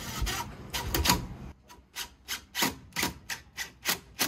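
Cordless drill-driver working a screw into the wooden fence, then its clutch slipping in a run of evenly spaced clicks, about three a second, as the screw seats.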